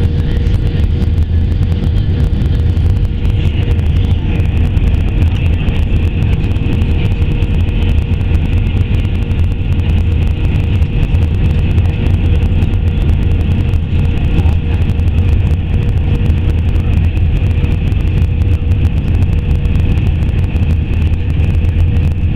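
Steady cabin noise inside an Airbus A320 airliner on approach with flaps extended: a deep rumble of engines and airflow with a steady hum, and a high whine that grows stronger about three seconds in.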